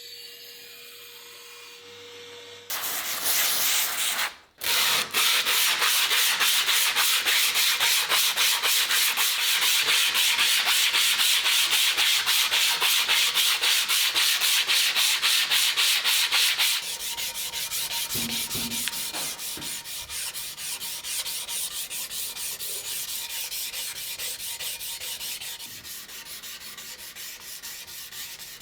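Fast, even back-and-forth strokes of an abrasive rubbing over the steel of a meat cleaver blade by hand. They start about three seconds in, break off briefly, and grow quieter about two thirds of the way through.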